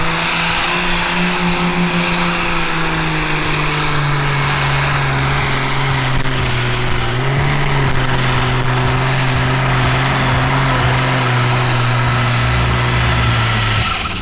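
Pro Stock pulling tractor's diesel engine running flat out under heavy load as it drags a weight-transfer sled, its pitch sagging slightly about four seconds in as the load builds. The engine note falls away near the end as the pull finishes.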